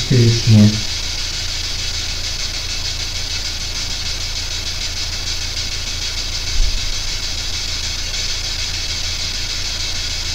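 Steady hiss of static over a low electrical hum, with a brief voice in the first second and one short low thump about two-thirds of the way through.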